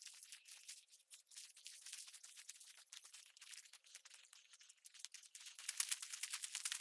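Faint footsteps crunching over rocky, scrubby ground, turning into a denser, quicker crunching on loose gravel about five and a half seconds in.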